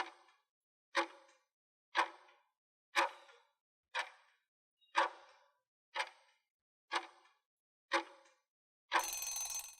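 Countdown-timer clock sound effect ticking once a second, nine ticks, followed near the end by a short time's-up sound lasting under a second.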